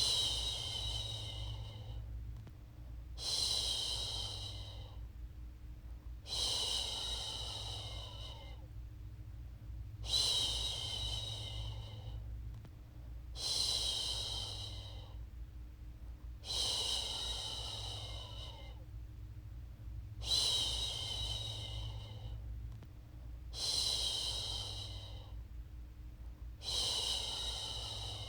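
A woman shushing, one long 'shhh' about every three and a half seconds in a steady, even rhythm, the soothing shush used to lull a baby to sleep. A low, steady hum runs underneath.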